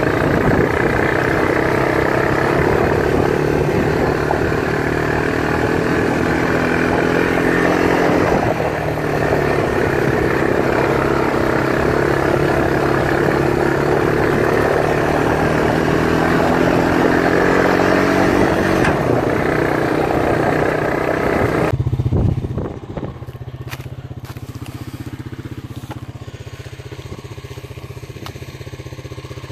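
Quad bike engine running under way, its pitch rising and falling with the throttle. About 22 seconds in it drops to a quieter, steady idle.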